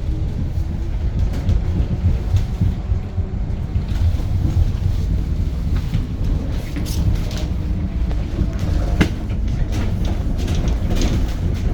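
Cabin noise of a 2021 Edison Motors SMART 093 electric bus under way: a steady low rumble of road and tyre noise, with body and fitting rattles and clicks, one sharp click about nine seconds in.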